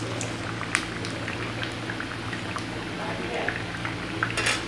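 Urad dal masala vadas deep-frying in hot oil in a kadai: a steady crackling sizzle made of many small pops. A sharp click comes about a second in, and a brief louder burst of crackle and scraping just after four seconds, as a wire skimmer is worked through the frying vadas.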